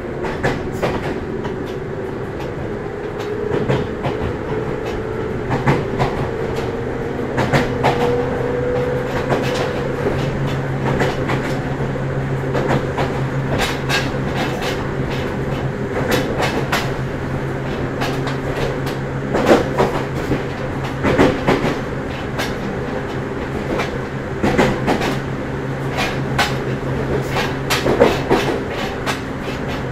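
Ryutetsu 5000-series electric train running, with a whine that rises in pitch over the first several seconds and then holds steady. Irregular clacks from the wheels come throughout.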